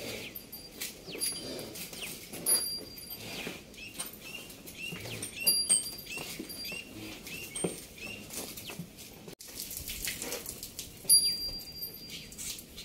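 A young calf's hooves tapping and scuffing irregularly on a concrete shed floor as it is led on a tether. Birds chirp in the background, one giving a short chirp about twice a second for a few seconds in the middle.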